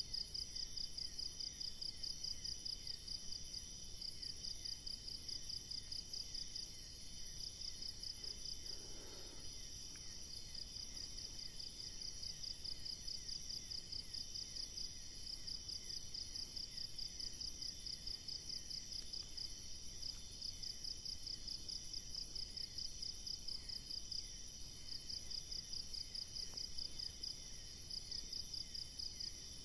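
Insect chorus: steady, rapidly pulsing trills at several pitches, the loudest a high, even trill.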